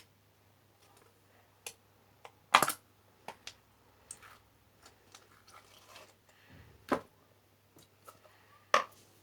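Slime being mixed and squeezed by hand, giving irregular sticky clicks and pops, the loudest about two and a half seconds in, around seven seconds and near the end.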